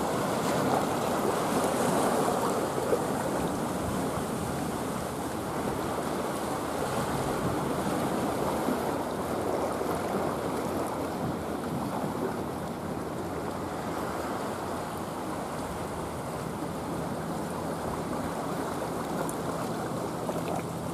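Choppy sea water lapping and sloshing steadily around a kayak close to a rocky shore.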